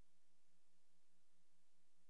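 Near silence: a silent newsreel with no soundtrack, leaving only a faint steady hiss and a low hum.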